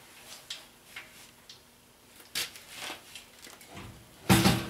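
Light metallic clicks and knocks as a compressor pump and its mounting bracket are worked by hand on the steel air tank, then about four seconds in a loud metal clang and scrape with a ringing tone. The pump is being shifted to free washers jammed under the mount.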